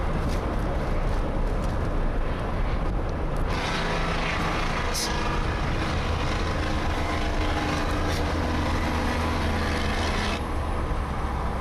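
Straight-piped Detroit Diesel 12V71, a two-stroke V12 exhausting through dual 6-inch straight stacks on a loaded 1975 Peterbilt, running steadily under load. It is heard from a following car through the windshield, mixed with road and wind noise.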